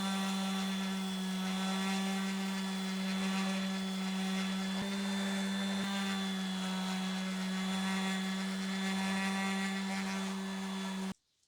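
Electric power tool motor running at a steady high speed, a constant whine with no change in pitch, cutting off suddenly near the end.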